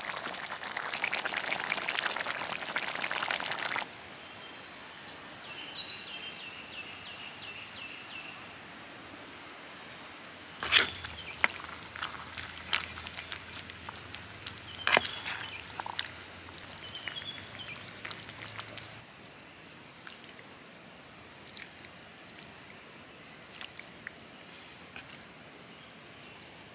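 Curry cooking in a clay pot over a wood fire, a dense crackling hiss for about four seconds. Then a bird chirps a few times. From about ten seconds in, a spoon knocks and scrapes against the clay pot in sharp clicks, thinning to a few light taps near the end.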